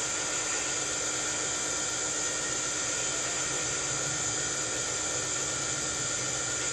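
Steady whirring hiss of a running motor with a faint constant hum, unchanged throughout.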